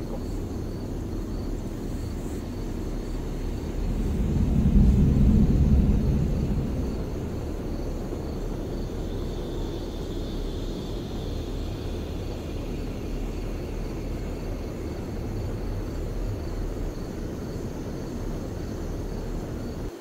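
Car engine and road noise heard from inside the cabin as a steady low rumble. It swells louder for a few seconds about four seconds in, then settles back.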